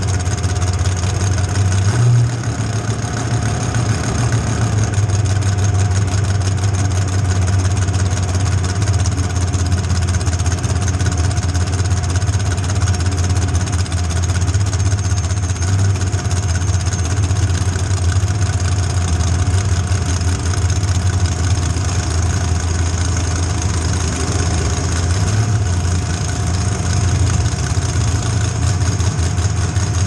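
Demolition derby car's engine running steadily at idle as the car creeps along, heard from inside the stripped-out cab, with a brief small swell about two seconds in.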